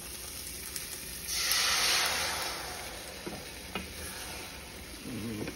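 Beaten eggs poured into a hot stainless-steel frying pan of potato hash: the pan sizzles, surging loudly about a second in as the eggs hit the hot metal, then easing back to a steady frying sizzle, with a couple of light clicks.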